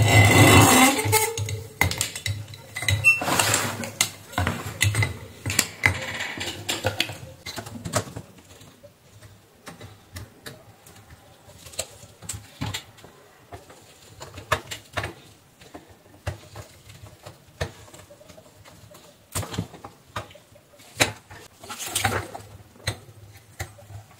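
Clicks, clinks and rattles of hand work on an insect zapper: its metal wire electrode grid, plastic housing and a fluorescent UV tube being handled while a small screwdriver works at the tube terminals. A louder stretch of scraping and rattling fills the first several seconds, then scattered small clicks and taps.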